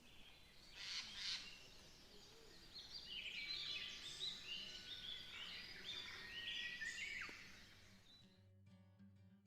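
Outdoor ambience with a songbird singing a long run of quick chirping notes over a faint steady hiss. Near the end the outdoor sound cuts out and a low held musical note begins.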